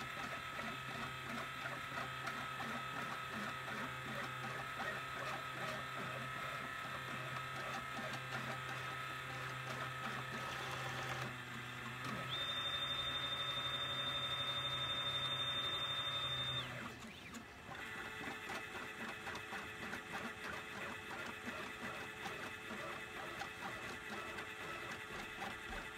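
Stepper motors of a CNC pen plotter whining as the pen head moves across the board drawing lines, a mix of steady tones that shift whenever the move changes. Past the middle a higher, louder whine holds for about four seconds, then drops back to the lower drive sound.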